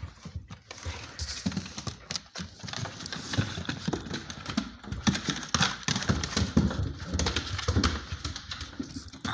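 Puppies' paws scrabbling and patting on wooden floorboards as they play, a quick run of soft knocks and thumps that keeps up throughout.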